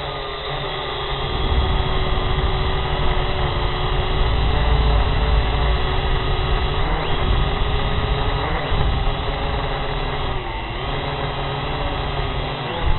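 Small quadcopter drone's electric motors and propellers whining steadily, heard from the drone's own onboard camera over a heavy low rumble. The pitch dips briefly several times as the drone manoeuvres.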